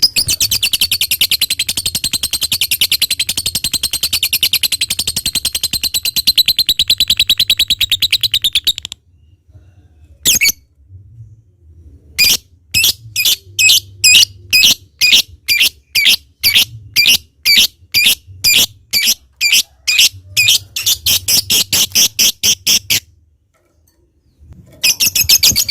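Lovebird giving a long, rapid, chattering trill (the 'ngekek panjang' prized by breeders) for about nine seconds. After a pause it calls in separate sharp chirps about two a second. The rapid chatter starts again near the end.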